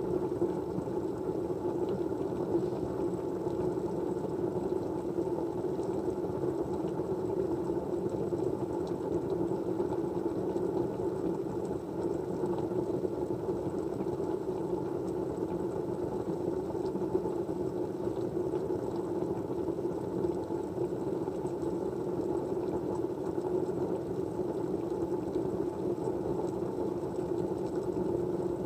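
Steady, muffled white-noise hum, low and even with no changes, and a faint thin high tone above it.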